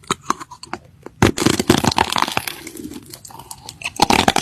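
Crinkling and crunching: a dense run of sharp crackles and clicks, sparse at first and thicker from about a second in.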